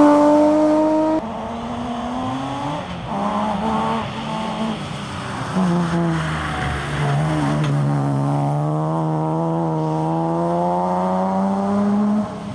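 BMW M3 rally car engine under hard driving, its pitch shifting as it is revved and changes gear. From about halfway it holds one long pull, the note slowly rising, until the sound cuts near the end.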